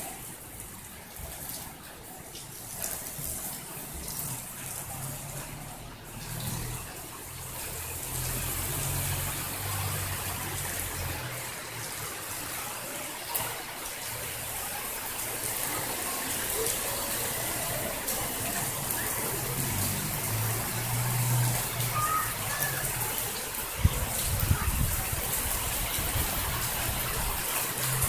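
Heavy rain pouring down, a dense steady hiss that slowly grows louder, with a low thump about 24 seconds in.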